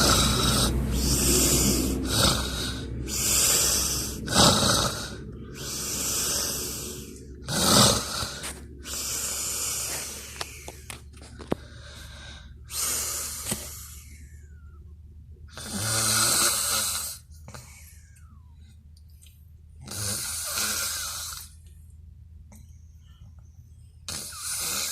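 A sleeping man snoring loudly: a quick run of snores for the first ten seconds or so, then one snore every three to four seconds.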